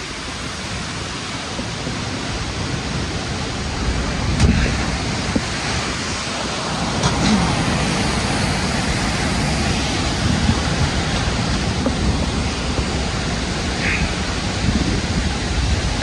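Grey Mare's Tail waterfall pouring into its plunge pool at close range: a dense, steady rush of falling water, growing louder over the first few seconds and then holding, with a few low bumps now and then.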